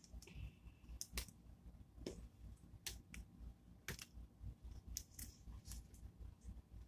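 Faint, scattered light clicks and rustles of hands handling paper and small craft pieces on a plastic-covered table, spaced unevenly about a second apart.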